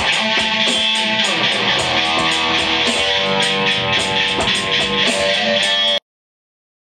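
Metal band playing at rehearsal: electric guitars, bass guitar and drums together, with steady drum hits. The music cuts off suddenly about six seconds in.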